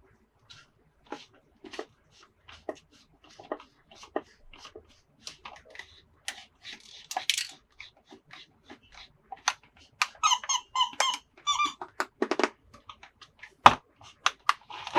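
Plastic toy parts and packaging being handled: scattered clicks and taps, a crinkle a few seconds in, and a run of squeaks about ten seconds in.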